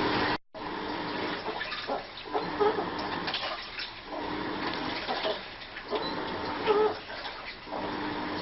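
Washing machine running, water sloshing in the drum with a surge that comes back every couple of seconds. The sound drops out briefly just under half a second in.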